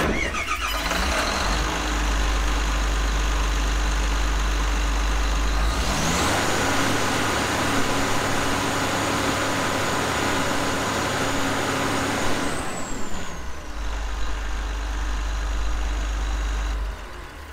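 Komatsu SAA6D114E-3 six-cylinder diesel engine of a PC300LC-8 excavator running at idle. About six seconds in it revs up, with a high whine rising with it, and holds there until about twelve and a half seconds in, when it drops back to idle.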